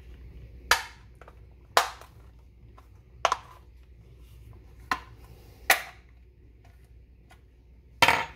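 Plastic case of a 25.2 V Li-ion vacuum battery pack being pried open with a table knife: six sharp cracks as its snap-fit clips give way along the seam. The last crack, near the end, is the loudest.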